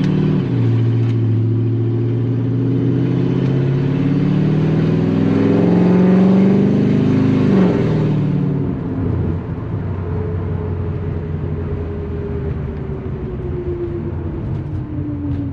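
LS-swapped V8 in a 2004 Infiniti G35X sedan pulling under acceleration: the engine note climbs steadily in pitch for about seven seconds as the revs build. Then it drops off and settles into a quieter, lower run with a slowly falling tone.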